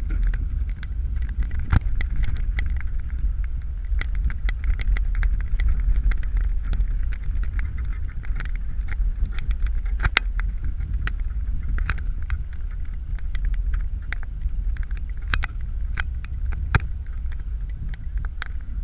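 Inside a vehicle's cabin at low speed: a steady low rumble of engine and tyres, with frequent small clicks and knocks from the vehicle rolling over a rough dirt lot.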